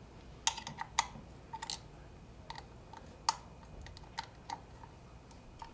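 Scattered light clicks and taps, about ten, at uneven intervals, as hands fit and handle the newly installed Arlen Ness Method air cleaner cover on a motorcycle engine.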